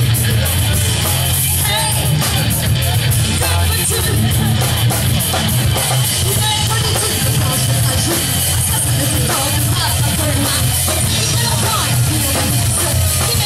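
Live rock band playing loud: electric guitars, bass and drum kit, with a singer's voice over them.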